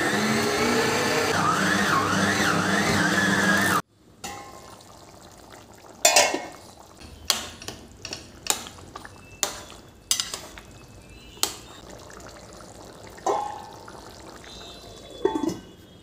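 AGARO electric stand mixer motor running while its hook kneads dough, a steady whine whose pitch wavers; it cuts off sharply about 4 seconds in. Then a metal spatula clinks and scrapes against a steel pan while stirring a thick curry, about a dozen sharp knocks spread unevenly.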